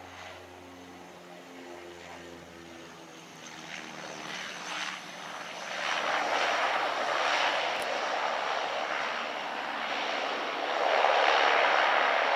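Antonov An-24's two turboprop engines as it rolls along the runway. Low steady propeller tones at first give way to a broad engine and propeller noise that grows louder from about four seconds in and is loudest near the end.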